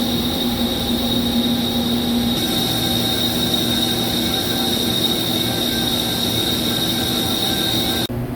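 CNC machine cutting a ductile cast iron (GCD500) tire mold segment: steady machining noise with a high, even whine and a low hum. The sound changes abruptly just before the end, when the whine drops out.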